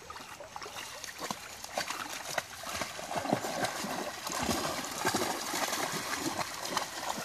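Dogs and a person wading through shallow creek water, with irregular splashing of legs and paws, busier from about three seconds in.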